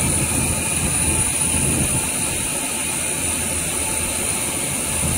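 A fishing boat's engine running steadily: a continuous low drone with a faint high whine above it.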